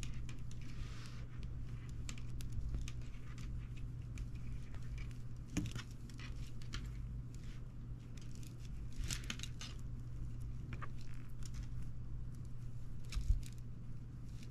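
Plastic coil springs squeezed and twisted in the fingers: irregular small clicks, rattles and rubbing, with a sharper knock near the end. A steady low hum runs underneath.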